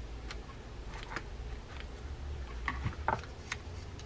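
Scattered light clicks and taps of small reel parts and tiny screws being handled and fitted with a small screwdriver on an Okuma Komodo SS baitcasting reel, a few clicks coming close together about three seconds in, over a low steady hum.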